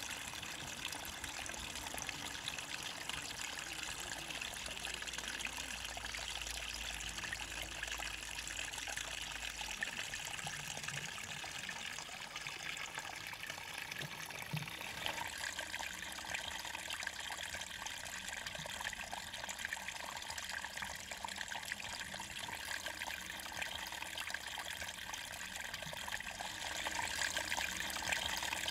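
Small forest stream trickling and splashing over stones, a steady rush of running water whose tone shifts slightly about halfway through.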